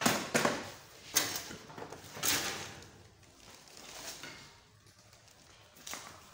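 Sheet-metal back chassis of an opened LED TV being lifted and handled: several short scraping, rattling bursts over the first two and a half seconds, then quieter sounds of footsteps as it is carried.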